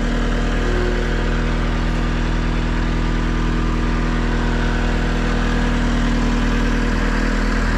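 Engine of a piece of heavy equipment running steadily at idle.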